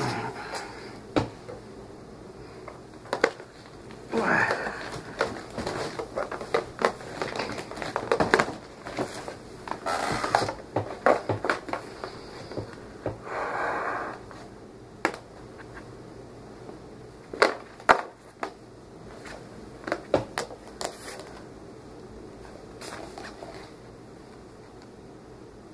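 Cardboard toy box and packaging being handled: rustling and scraping in short stretches, with sharp clicks and taps scattered throughout, thinning out near the end.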